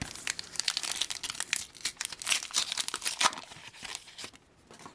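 A Panini Adrenalyn XL card pack's wrapper being torn open and crinkled in the hands, a dense run of crackles for about four seconds that then dies away.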